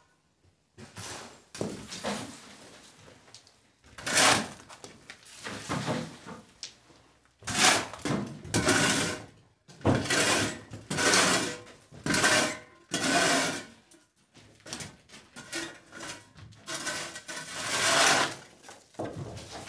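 Metal shovel scraping across a concrete floor, scooping up rubble and grit in a run of repeated strokes, each about a second long.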